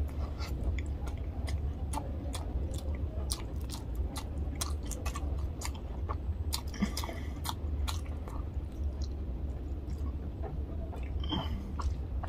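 Close-up mouth sounds of a person eating rice and tilapia fish curry by hand: chewing with many short wet clicks and smacks of the lips and mouth.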